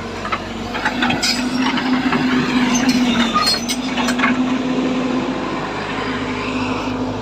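Heavy construction machine's diesel engine running steadily, with a string of sharp metallic clanks and knocks from about one to four and a half seconds in.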